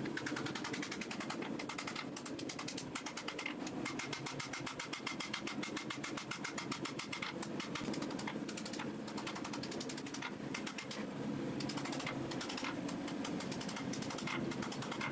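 Rapid, evenly paced hammer blows of steel on a hot steel knife blade on an anvil, several strikes a second, over a steady low rush.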